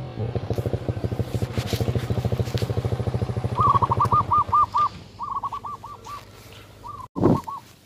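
A small engine putters with a fast, even beat, then fades out after about three and a half seconds. A bird then calls in three quick trills of repeated chirps. A short, loud thump comes near the end.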